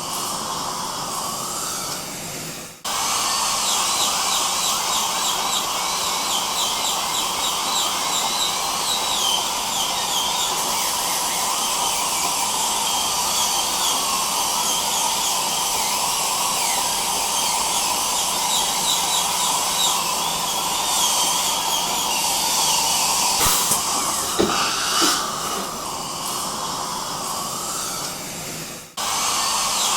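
Dental drill whine with the hiss of suction, a steady mechanical drone. It breaks off sharply twice, about three seconds in and near the end, where segments are spliced, and high chirps run over the long middle stretch.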